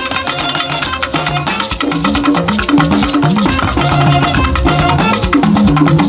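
Upbeat Latin-style band music led by percussion, with a shaker and hand drums over a bass line that grows stronger about a second in.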